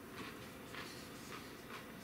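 Faint chewing of a bite of raw ghost pepper: a few soft, wet mouth sounds about every half second over quiet room tone.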